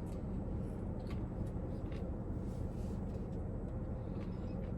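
Steady low background hum with a few faint, short clicks and taps.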